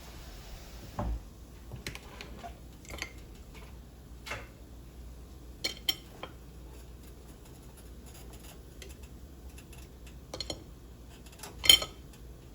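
Kitchen utensils clinking and knocking against a pan and dishes at scattered moments. There is a dull thump about a second in, and the loudest, sharpest knock comes near the end.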